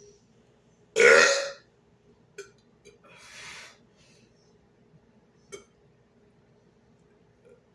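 A man's loud burp about a second in, lasting about half a second, followed a couple of seconds later by a softer breathy hiss and a few short clicks.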